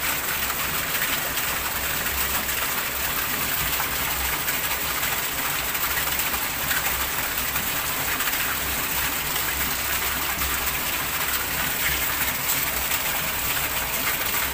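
Heavy rain pelting standing water on a tiled floor: a steady, dense hiss of drops splashing.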